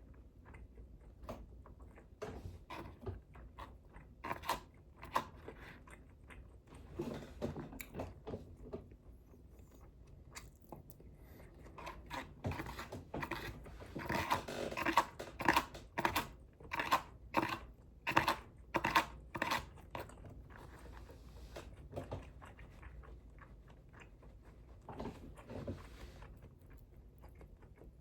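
A person chewing food close to the microphone: runs of chewing and biting with short pauses between them. The chewing is busiest and loudest about halfway through, at roughly two chews a second.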